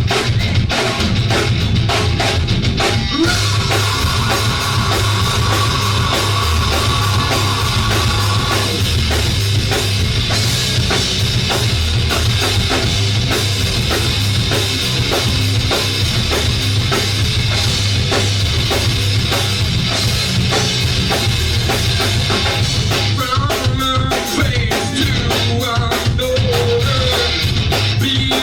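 Rock band playing live, heard loud from the audience: drum kit keeping a steady beat under electric guitar. A long held high note comes in a few seconds in and lasts about five seconds.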